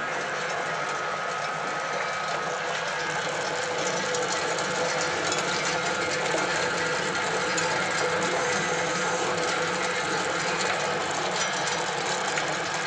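XGJ560 wood pellet mill running steadily on pine sawdust, a steady machine hum under a dense, fast rattle of fresh pellets dropping out of the mill onto its metal outlet.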